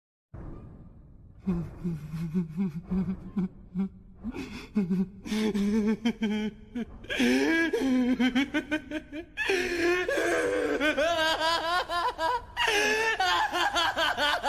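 Laugh sound effect: after a moment of dead silence, a person's laughter starts as low chuckles and builds into longer, higher-pitched, wavering laughing fits with a couple of short breaks for breath.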